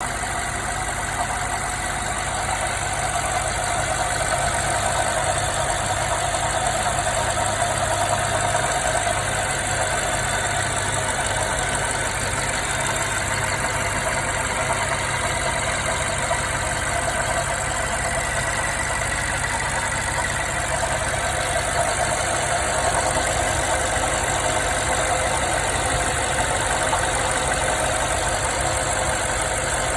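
2016 BMW 550i's 4.4-litre twin-turbo V8 idling steadily with a rapid, even knocking that the owner cannot account for, since the car drives fine and shows no fault codes.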